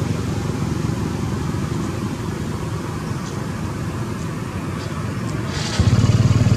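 A motor engine running steadily, with a low rumble that gets suddenly louder near the end.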